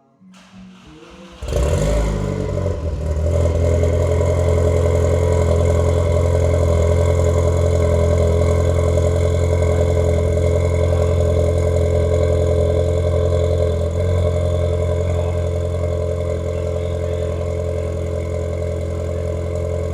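Mk4 Golf GTI's swapped-in BAM 1.8-litre turbocharged four-cylinder engine, breathing through a decat downpipe and cat-back exhaust, turns over briefly and catches about a second and a half in, then idles loud and steady.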